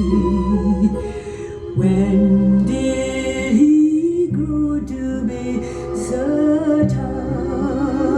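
Gospel-style record playing: a woman singing a slow ballad with a wide vibrato over accompaniment, played back from vinyl.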